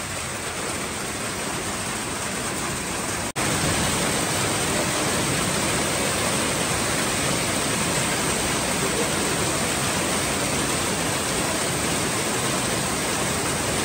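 Heavy rain mixed with hail falling steadily, hailstones pelting the ground and the outdoor tables and chairs as a dense, even hiss. A brief dropout about three seconds in, after which it is a little louder.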